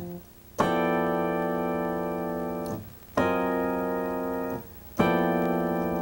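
Korg X3 synthesizer playing a G dominant chord voiced in stacked fourths (F, B, E, A, D, G: a G13 with the ninth). The chord is struck three times and held: about two seconds, then about a second and a half, then held on.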